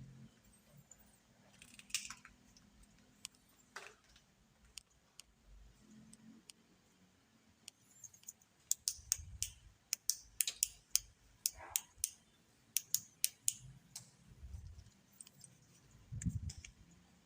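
A scattering of sharp, irregular clicks and ticks, bunched together in the middle, with a few soft low thumps.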